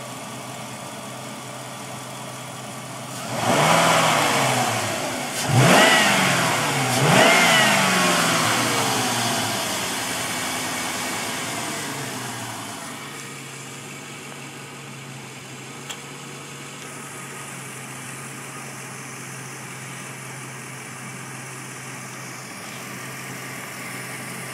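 2004 Jeep Grand Cherokee Overland's 4.7-litre H.O. V8 at a slightly rough idle, revved three times in quick succession a few seconds in. The revs then fall slowly back to a steady idle. The rough idle was traced by the owner to failing catalytic converters.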